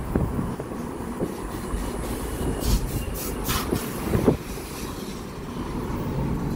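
Steady road rumble and wind noise heard inside a moving car with its window open, with a few short bursts of hiss about halfway through.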